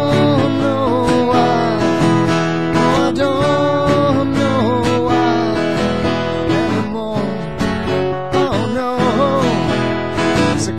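Acoustic guitar strumming chords in an instrumental break of a rock song, with a melody line that bends in pitch above the chords.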